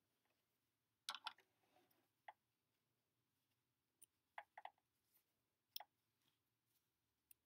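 Faint, scattered snips and clicks of small scissors cutting thread ends at a sewing machine: a quick cluster just after a second in, a double snip around the middle, and single ones later.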